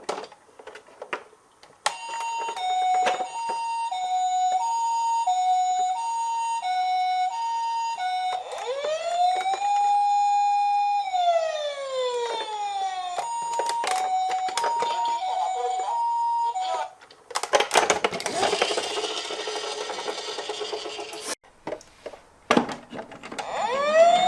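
Japanese-style ambulance siren alternating between a high and a low tone (pee-poh) at a steady pace. Partway through it switches to a wail that rises, holds and falls, then goes back to the two tones. Near the end there is a rattling rush of noise, and a new wail begins to rise.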